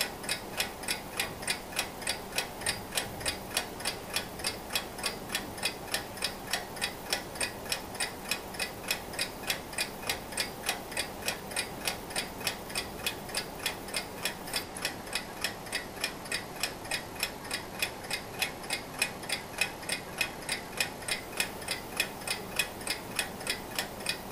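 Antique Junghans mechanical alarm clock ticking steadily, about four even ticks a second.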